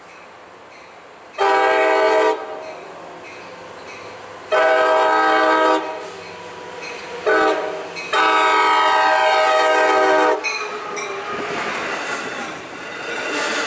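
Long Island Rail Road train horn sounding the grade-crossing signal as the train approaches: long, long, short, long, with the last blast held the longest. Then the rumble and clatter of the bilevel coaches' wheels as the train rolls past near the end.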